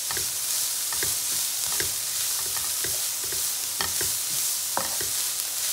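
Shredded vegetables sizzling in oil in a wok while a wooden spatula stirs them, with a steady hiss and a scrape or knock against the pan about once a second.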